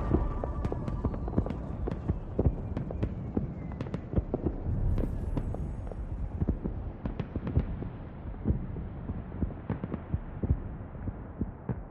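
Muffled electronic music transition between songs: low thumping with scattered sharp clicks, growing steadily duller as the high end is filtered away.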